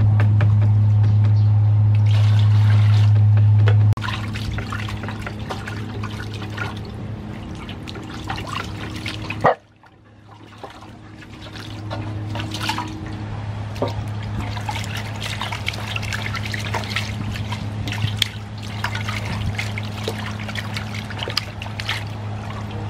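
Water sloshing and splashing in a metal basin as hands rub and scrub a raw pork leg. Under it runs a steady low hum, loud for the first few seconds and fainter after. Near the middle a sharp click is followed by a brief drop to near silence.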